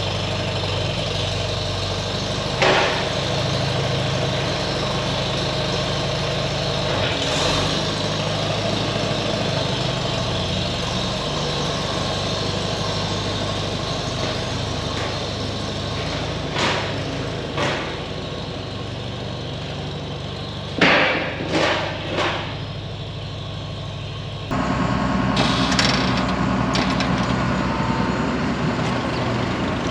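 Heavy farm machinery's engine running steadily, with several short metallic clunks as the equipment is worked. About 25 seconds in, the engine sound changes abruptly to a louder, lower running.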